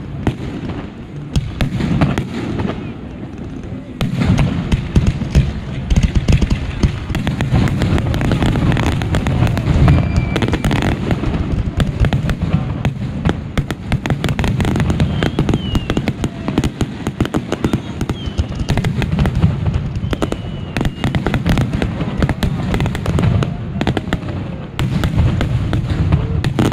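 Fireworks display firing continuously: a dense, rapid run of bangs and crackles from aerial shells bursting overhead, with a heavy low rumble underneath.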